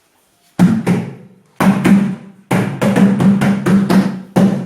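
A drum being beaten in a folk rhythm. Two hits about half a second in, two more about a second later, then steady beating of several strokes a second.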